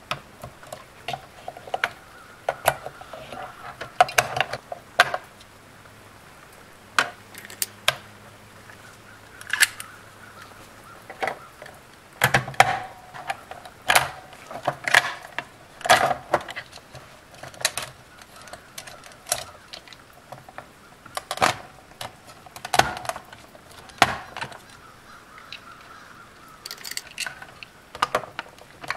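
Hard plastic parts of a Buzz Lightyear action figure clicking and tapping as they are handled and fitted together, a few sharp clicks at a time with short pauses between.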